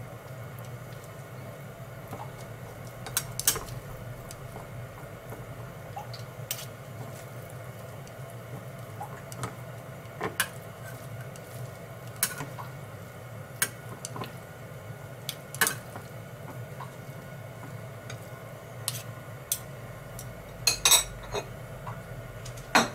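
A metal spoon and chopsticks clinking against a ceramic bowl as sliced turnip and greens are tossed with cod roe dressing: sharp, irregular clinks every second or two, with a quick run of louder ones near the end, over a steady low hum.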